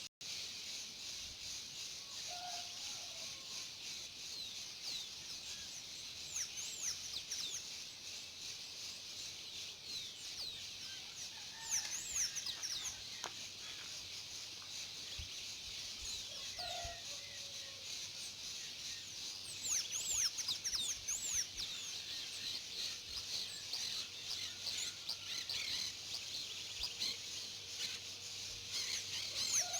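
Songbirds chirping and twittering at dusk: many short, high calls come thick and fast, busiest around a third of the way in and again in the last third. They sit over a steady high-pitched background chorus, with a few faint lower calls now and then.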